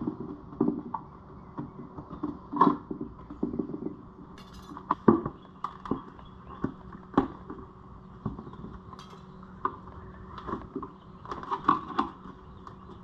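Irregular knocks, taps and scrapes of hands working on a plastic ATV airbox, pulling and scraping out the old factory silicone, over a steady low hum.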